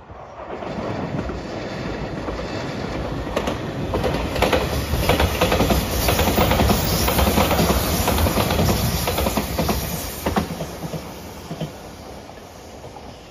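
JR Shikoku 8000 series electric limited express train passing at speed: the rumble rises quickly, is loudest in the middle with the wheels clicking over rail joints, then fades as the train moves away near the end.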